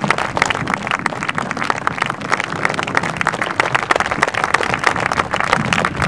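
A crowd of spectators applauding, many hands clapping at once in a dense, even patter.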